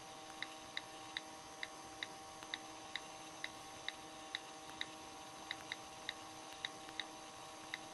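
iPhone 4 on-screen keyboard clicks as a text message is typed: faint, uneven ticks, about two or three a second, over a faint steady hum.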